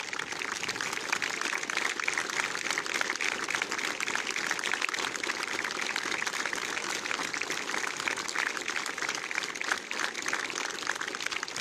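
Crowd applauding steadily, a dense, even patter of many hands clapping.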